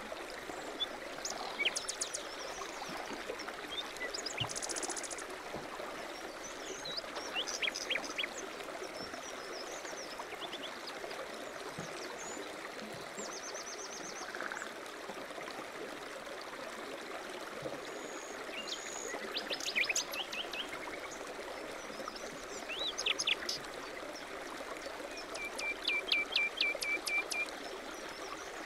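Stream running steadily, with small birds chirping over it: short calls scattered throughout and a quick run of repeated notes near the end.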